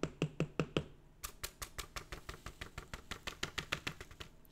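Rapid, even tapping on a folded sheet of card used as a funnel, knocking loose glitter down into a small jar. Several light taps a second, with a short pause about a second in and a quicker run after it.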